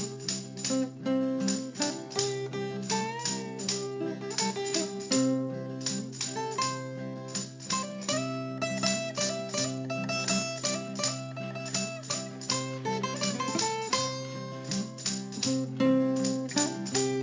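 Background instrumental music of rapidly plucked guitar-like strings over a steady bass line.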